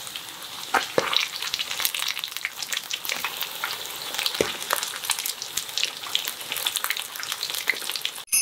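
Potato-starch-coated chicken pieces (karaage) shallow-frying in hot oil in a frying pan: a steady sizzle full of fine crackling with a few louder pops, cutting off suddenly near the end.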